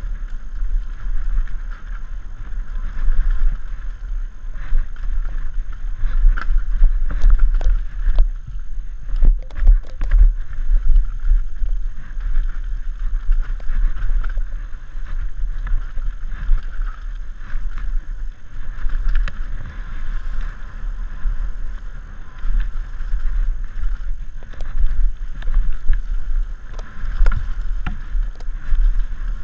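Ride noise from a helmet-mounted GoPro on a downhill mountain bike descending a wet dirt trail at speed: a constant rushing rumble of wind and tyres, with sharp knocks and rattles as the bike hits bumps, thickest about a quarter to a third of the way in.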